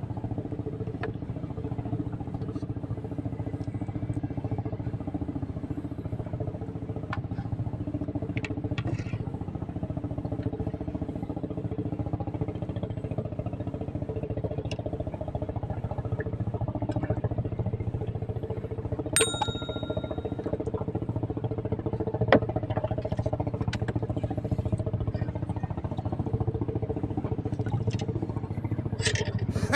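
Steady low motor hum throughout, with scattered light clicks and one short ding about nineteen seconds in.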